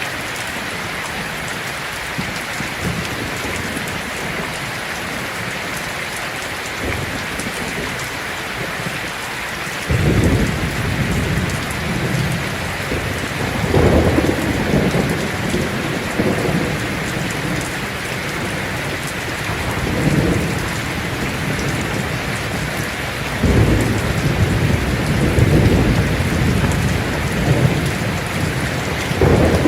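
Heavy rain drumming steadily on a tin roof, with thunder breaking in suddenly about a third of the way through and rolling on in several deep swells to the end.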